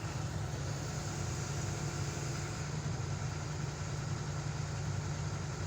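Diesel engine of heavy equipment running steadily at low revs with a constant low hum.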